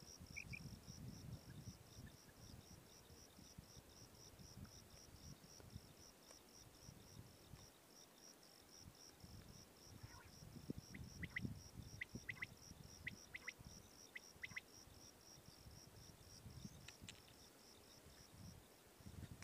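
Faint, steady insect chirping, a high pulse repeated about four to five times a second, which stops shortly before the end. A few short, sharp bird calls come in small groups in the middle, over a low, uneven rustle.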